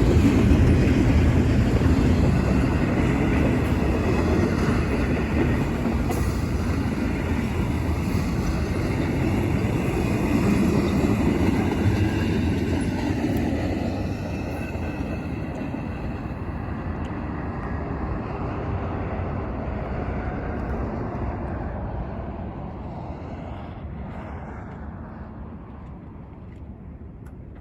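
A long train's cars rolling along the rail as it slows, a steady rumble and rattle that fades away gradually, the higher sounds dying out first.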